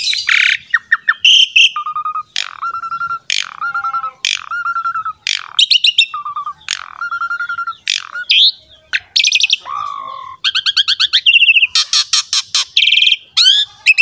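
Asian pied starling (jalak suren) in full, loud, varied song. It strings together rapid runs of short repeated notes, sweeping whistles and a recurring lower whistled note, with a harsh note at the start.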